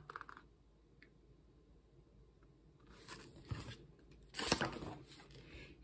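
Stiff cardboard pages of a board book being handled and turned: faint room tone at first, then two short spells of rustling and light knocks, about three and four and a half seconds in.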